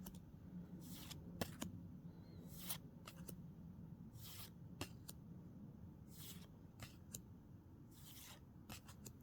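Lorcana trading cards sliding over one another as they are flipped through one at a time: faint, irregular soft swishes with a few light clicks.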